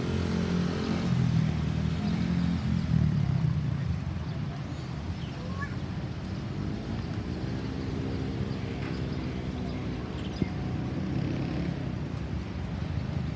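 Road traffic: vehicle engines running and passing by, swelling and fading twice, with a single sharp click about ten seconds in. No siren sounds.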